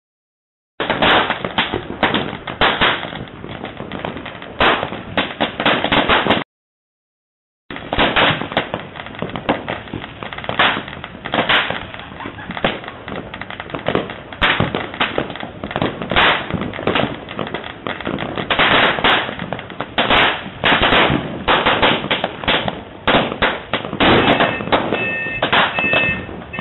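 Dense, continuous barrage of firecrackers and fireworks going off, sharp cracks and bangs in rapid, irregular succession. The sound cuts out completely twice, briefly just as it begins and for about a second a little after six seconds in.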